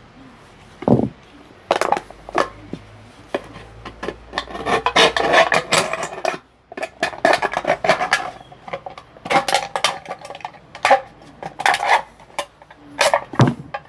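Aluminium soft-drink can being dented, crumpled and torn open by hand: an irregular run of metallic crinkles, creaks and scrapes in bursts.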